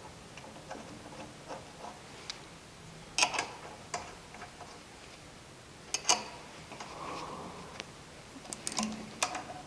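Sporadic light metallic clicks and taps a few seconds apart, with a small cluster near the end, from bolts and tools being handled as the latch block's bolts are greased and fitted.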